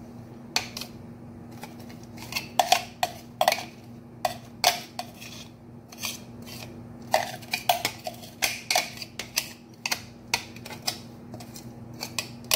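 Irregular clinks and knocks of a plastic food-chopper bowl being tapped against the rim of a ceramic bowl to shake loose blended cauliflower rice stuck inside. There are many short knocks at an uneven pace, over a steady low hum.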